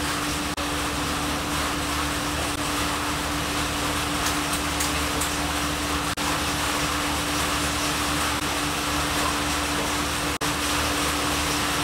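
Steady mechanical hum and hiss, like a running fan, with one constant low tone under it; it cuts out very briefly three times. No screwdriver clicks stand out above it.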